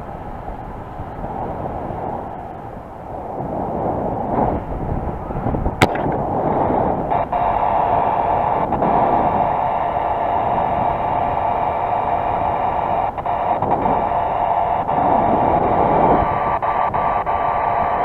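Wind buffeting the microphone of a camera worn by a paraglider pilot in flight. There is a sharp click just before halfway, and soon after a steady, even whistling tone joins the wind and carries on.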